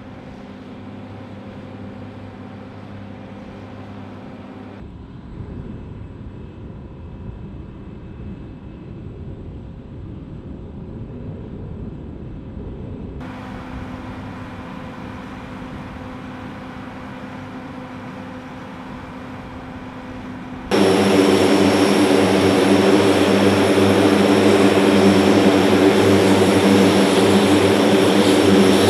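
C-130 four-engine turboprop aircraft running on the ramp: a steady engine drone with a propeller hum, changing abruptly at each edit cut. About two-thirds in it jumps to a much louder, close-up engine run with a high steady whine.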